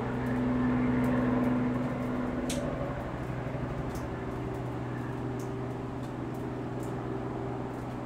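Outdoor patio ambience dominated by a steady low mechanical hum with several pitches in it, swelling for a couple of seconds about half a second in and then easing back. Faint short high ticks are scattered through it.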